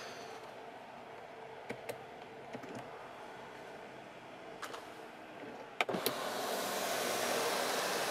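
Several button clicks from a car's overhead console, then a louder click about six seconds in as the power sunroof starts opening, followed by a steady whir of its motor.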